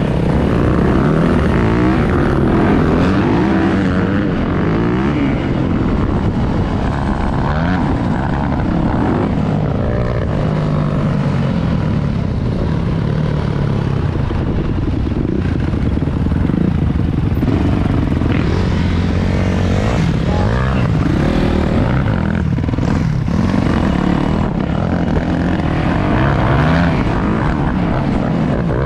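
Four-stroke dirt bike engines riding along, several at once, their pitch climbing and falling as the throttles open and close through the gears.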